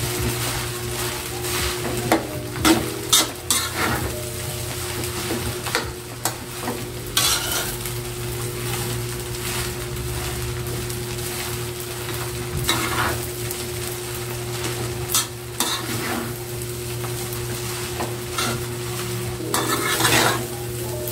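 Metal spatula scraping and clinking against an aluminium wok as fried rice is stirred and tossed, in irregular strokes over a steady frying sizzle. A steady low hum runs underneath.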